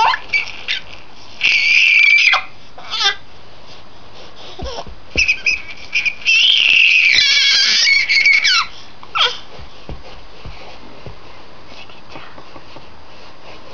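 Infant girl squealing with delight: two long, high-pitched squeals, the first a little over a second in and the second, longer one about halfway through, with short squeaks between them.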